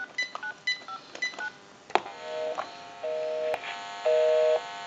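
GE 27909 cordless telephone dialing: a quick run of touch-tone digit beeps, then a click about two seconds in. After the click comes the two-tone busy signal, on for half a second and off for half a second, showing that the called line is busy.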